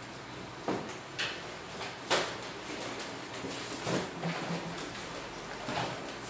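A few light, sharp knocks and clatters of things being handled on a desk, about four in all, the loudest about two seconds in.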